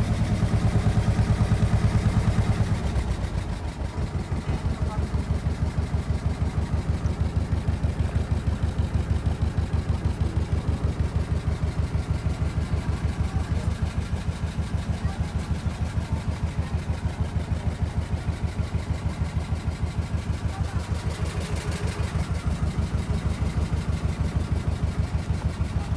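A small tour boat's engine running steadily while under way. It is louder for the first three seconds or so, then settles to a lower, even beat.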